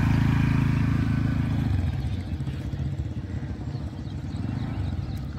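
Motor scooter's small engine running as she rides it off over a rough dirt path. Its sound drops noticeably after about two seconds and keeps fading as it moves away.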